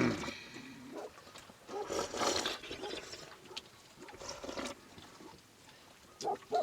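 Sheep bleating: a few separate calls with quieter gaps between them, one rising in pitch right at the start.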